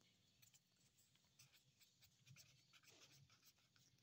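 Faint scratching of a pen writing on lined notebook paper, in short irregular strokes.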